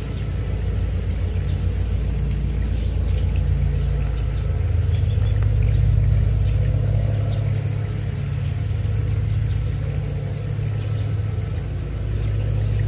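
A steady low machine hum, like a motor running, swelling a little around the middle.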